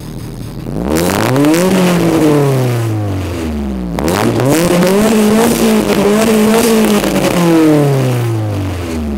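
A Honda B20 four-cylinder in a Civic coupe revving through a 2.25" DC header, a test pipe with no catalytic converter, and a Yonaka exhaust, heard at the tailpipe. It makes one quick rev that rises and falls, then a second rev held higher for a few seconds before it drops back toward idle near the end.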